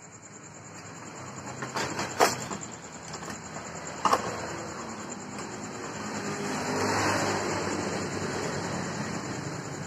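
A motor vehicle's engine passing by, swelling to a peak about seven seconds in and then fading. Two sharp metal clinks of steel tools being handled on the bench come about two and four seconds in.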